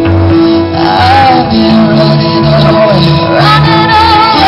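Live rock band playing through the PA: electric guitars, bass and drums over a steady pulse, with a woman singing the melody in two phrases.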